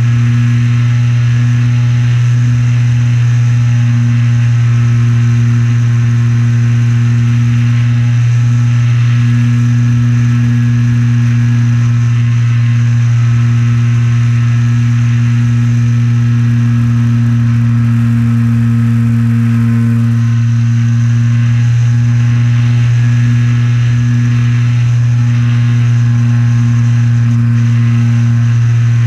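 Electric motor and propeller of an Art-Tech Wing Tiger RC trainer plane in flight, heard from a camera mounted just behind the propeller: a loud, steady drone that holds nearly the same pitch throughout, over a rush of air.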